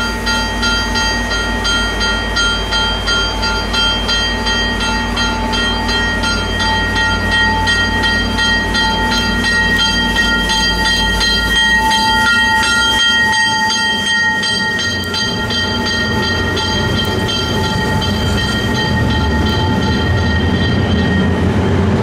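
A train passing close by: a low rumble with several steady high tones over rapid, evenly spaced wheel clicks. The low rumble drops away about twelve seconds in, and the tones fade soon after.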